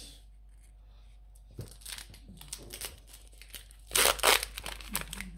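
Foil Pokémon booster-pack wrapper torn open by hand and crinkling, with the loudest tear about four seconds in.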